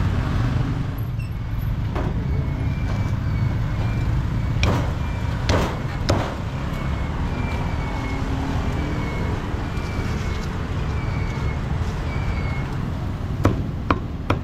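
Steady low rumble of street traffic, with a few scattered sharp knocks of a cleaver chopping roast pork on a wooden chopping block, two close together near the end.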